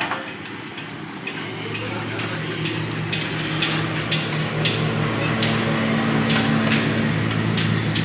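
Honda CG 125's single-cylinder four-stroke engine idling steadily, coming in about a second and a half in, with sharp ticks about twice a second.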